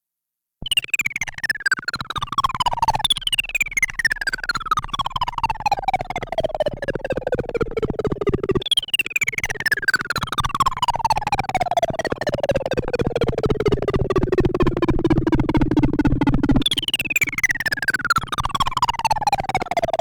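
Modular synthesizer patch (Arturia Modular V3): a buzzy tone made of very rapid pulses whose pitch slides slowly down from high to low, then jumps back up and slides down again, each slide longer than the last, over a steady low drone. It starts abruptly about half a second in.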